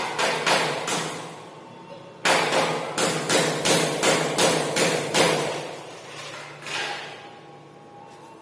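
Hammer blows: a few strikes, a short pause, then a quick steady run of about ten strikes at roughly three a second, each ringing briefly, and one last strike near the end.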